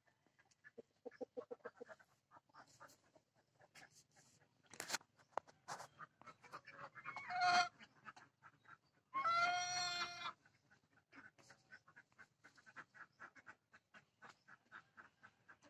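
Laying hen's pre-laying calls: soft repeated clucks throughout, a quick low trill just after the start, and two drawn-out calls about halfway through, the second of them the longest and loudest. These are the restless calls of a hen about to go and lay an egg.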